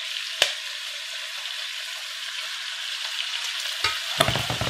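Duck livers searing in hot bacon fat in a pan: a steady sizzle, with one sharp pop about half a second in and a run of loud crackles and pops near the end as the grease spatters.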